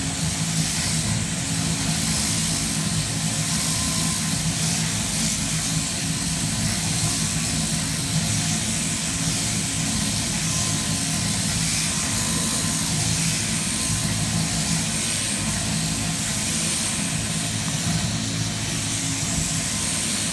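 Electric sheep-shearing handpiece on an overhead drive running steadily as it cuts through the fleece: an even mechanical hum with a high hiss.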